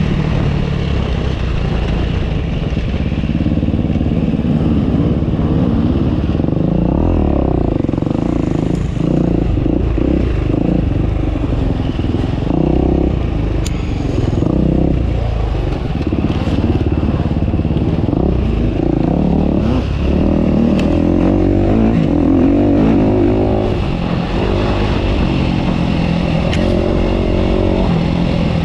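Enduro motorcycle engine running hard off-road, its pitch rising and falling over and over as it revs up and backs off. A couple of short sharp knocks stand out, one in the middle and one about two-thirds of the way through.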